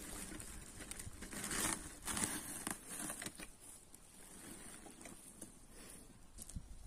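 Woven plastic sack rustling and crinkling in irregular bursts as it is handled, loudest about one and a half to two and a half seconds in, then fainter scattered rustles.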